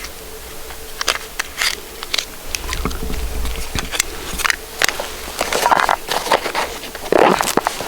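Footsteps crunching over dry ground and brush, with many sharp snaps and clicks of twigs and debris. The steps grow louder in short bursts past the middle and near the end.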